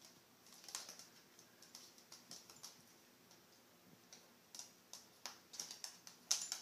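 Faint, scattered clicks and taps of a baby pot-bellied pig's hooves on a hardwood floor, coming thicker and louder over the last two seconds.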